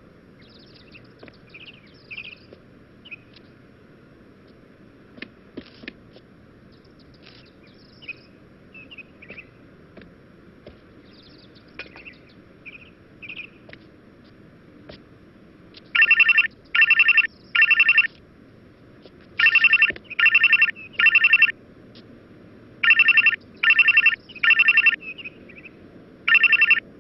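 Ringtone from a Vodafone ZooZoo advert: faint short high chirps over a low hiss, then a loud electronic telephone-style ring in sets of three trilling bursts, each about half a second long. Three such sets come a few seconds apart, and a single burst follows near the end.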